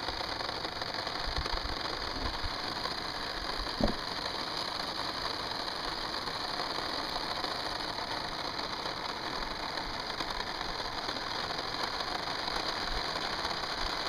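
Gas canister stove burner hissing steadily under a homemade aluminum foil cup of water that is coming to a boil. A single short knock about four seconds in.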